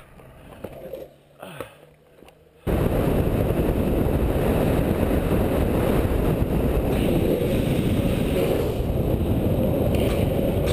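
Longboard wheels rolling fast on asphalt and wind rushing over the microphone during a downhill run, a steady loud rush that starts abruptly about two and a half seconds in after a quieter stretch.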